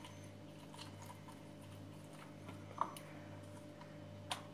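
Faint small clicks and taps of a yellow plastic hand citrus juicer as half a lemon is twisted on it and the juicer is handled, with a sharper tap about three seconds in and another near the end. A steady low hum runs underneath.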